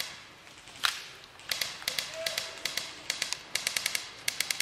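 Airsoft guns firing full-auto in short bursts of rapid clicking shots, about ten a second, four bursts in the second half after a single sharper crack about a second in.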